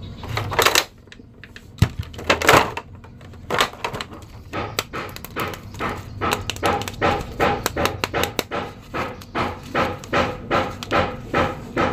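Handling noise from a plastic action figure and its clear plastic blister tray: crinkles and clicks, a few louder ones in the first three seconds, then an even run of about two to three a second.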